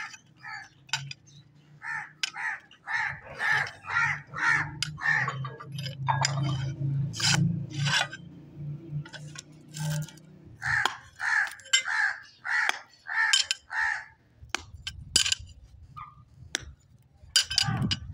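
Crows cawing over and over in runs of short, evenly spaced calls. A low steady hum runs underneath from about three seconds in until past the middle, and a few sharp clicks come through.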